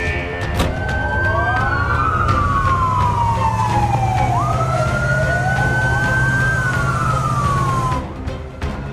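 Several fire-engine sirens wailing at once, their pitches sliding up and down and crossing one another, over a steady low rumble; they stop about eight seconds in.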